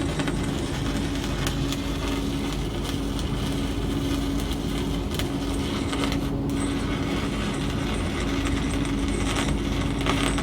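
Electric arc welding: the arc crackles and sizzles steadily for a continuous run, with a steady hum underneath.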